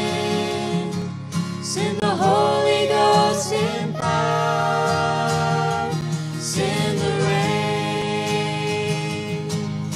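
Men's, women's and a girl's voices singing a gospel song in harmony, holding long notes with a few glides between them, over a strummed acoustic guitar.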